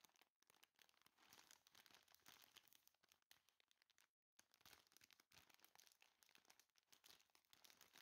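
Faint crinkling and crackling of a plastic snack bag as it is held and turned in the hands: a dense run of small crackles that cuts out briefly twice, just after the start and about four seconds in.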